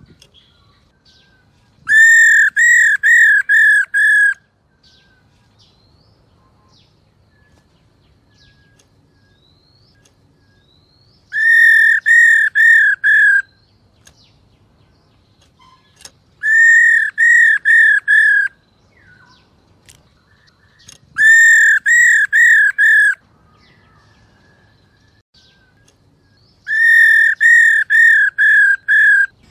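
Black-throated laughingthrush calling: five phrases of loud, clear whistled notes, each a quick run of five or six identical notes, with gaps of a few seconds between them.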